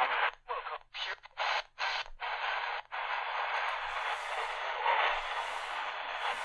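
Tecsun PL-380 portable radio's speaker on the medium-wave band as it is tuned: the AM audio cuts in and out four times in quick succession, then settles into a steady hiss of static on a channel with no clear station, 1340 kHz.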